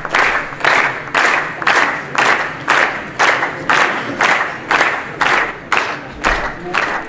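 A crowd clapping together in a steady rhythm, about two claps a second, in a reverberant hall.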